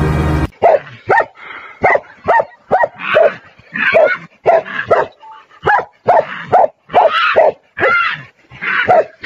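Tibetan mastiff barking over and over in short, sharp barks, about two a second.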